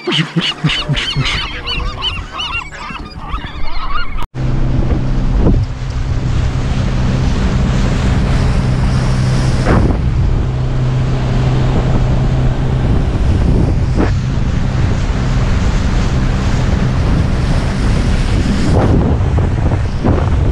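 A flock of gulls squabbling and calling over the water for about four seconds. Then, after a sudden cut, a small boat's outboard motor runs steadily under way, with wind buffeting the microphone and water rushing in the wake.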